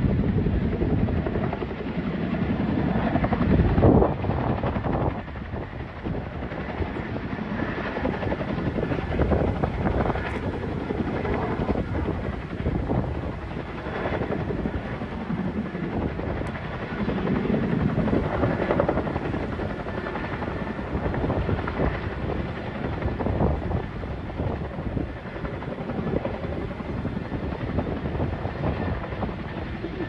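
CH-47 Chinook tandem-rotor helicopter flying overhead, its rotors and engines running steadily, briefly louder about four seconds in.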